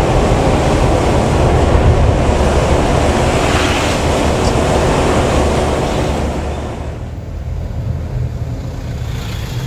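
Loud, steady rush of a bus's engine rumble and tyre noise on a wet road, heard from inside the moving bus. It eases off and gets quieter about seven seconds in.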